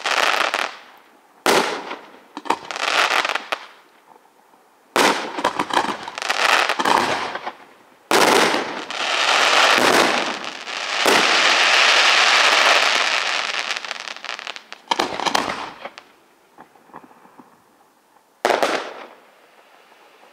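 Aerial firework shells bursting one after another, each a sudden bang followed by a fading fizz and crackle of burning stars. In the middle comes a long, dense stretch of crackling lasting several seconds, then a few more single bursts.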